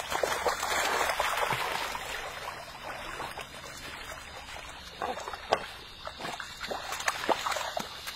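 Water splashing as a Labrador and its puppies wade and swim into a pond, loudest in the first two seconds and dying down by about four seconds in, then scattered short splashes through the rest.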